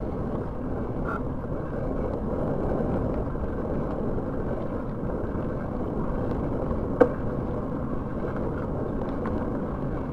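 Steady, muffled rumbling noise, with a single sharp click about seven seconds in.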